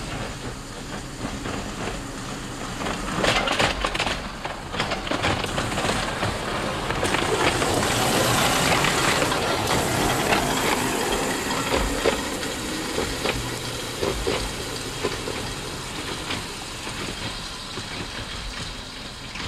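Quarter-scale model streetcar rolling on steel track. Its wheels rumble and clack over the rails, with a run of sharp clicks a few seconds in. It grows loudest as the car passes close by near the middle, then fades as it runs off.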